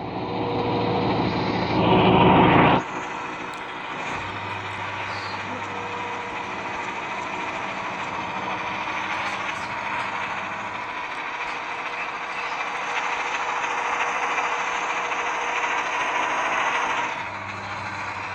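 Heavy truck running, loud for the first three seconds and then dropping suddenly to a steadier, quieter drone that swells slightly before easing near the end.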